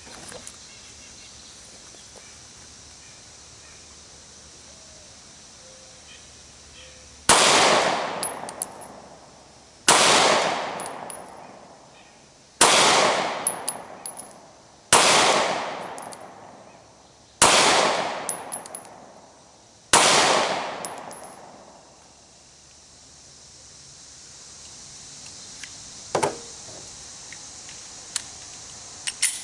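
Glock 43 9mm pistol firing six slow, evenly spaced shots about two and a half seconds apart, each followed by a long echo fading away. A few light clicks follow near the end.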